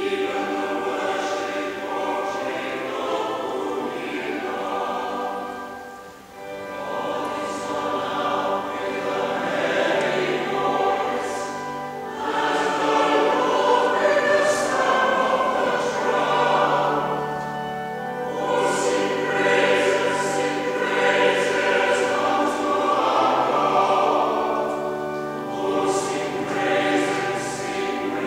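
Mixed church choir singing a psalm to Anglican chant, in verse-length phrases with brief pauses between them.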